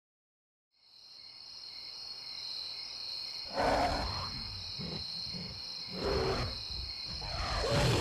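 Night ambience of crickets chirring steadily, fading in after about a second of silence. Three louder, rough swells of noise rise and fall a couple of seconds apart over it.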